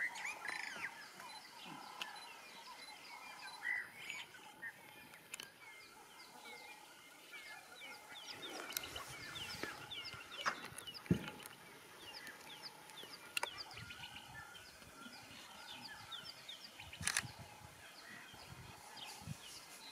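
Birds calling in the bush: many short chirps and calls overlapping throughout. A few sharp clicks stand out, about halfway through and again near the end.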